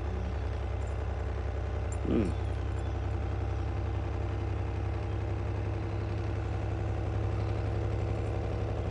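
DC Audio Level 3 10-inch subwoofer, bare and out of any box, playing a 20 to 35 Hz bass test sweep as a steady low hum with buzzing overtones; at these frequencies it sounds very quiet. A brief vocal sound comes about two seconds in.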